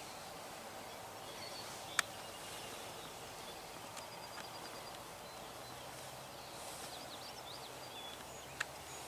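Quiet open-field ambience with faint songbird chirps and whistles, and two sharp clicks, about two seconds in and again near the end.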